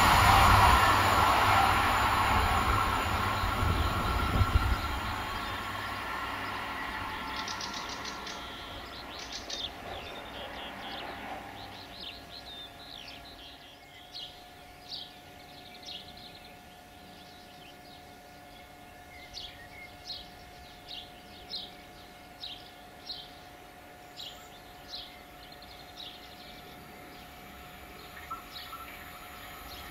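Stadler Flirt electric multiple unit running away down the line, its noise fading over the first five or six seconds. Then birds sing in short high chirps about once a second, and another train begins faintly to rise near the end.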